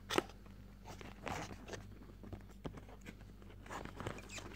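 A cardboard perfume box being opened by hand: a sharp snap just after the start, then scattered scraping and rustling of the card as it is handled.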